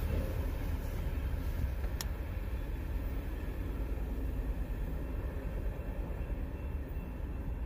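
Car driving, heard from inside the cabin: a steady low road and engine rumble that eases slightly, with a single sharp click about two seconds in.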